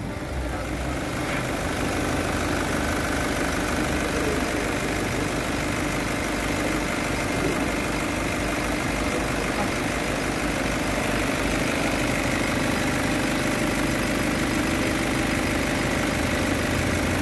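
Nissan Patrol's direct-injection diesel engine idling steadily, heard up close in the open engine bay.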